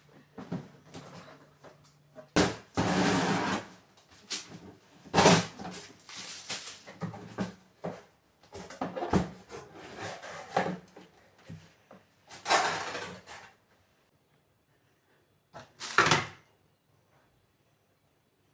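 Household handling sounds in a small room: a run of knocks and clatters with a few short rushes of noise lasting about a second each, then quiet for the last couple of seconds.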